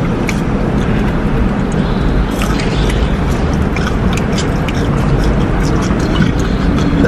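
Steady low rumble with scattered small clicks and rustles of takeout food being handled and eaten.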